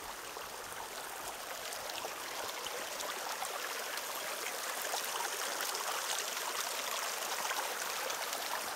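A shallow spring-fed brook trickling over small rocks and through grass, a steady rushing that slowly grows louder.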